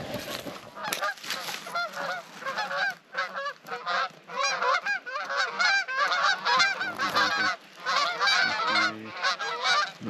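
A flock of Canada geese honking in flight, many short overlapping calls coming thick and fast.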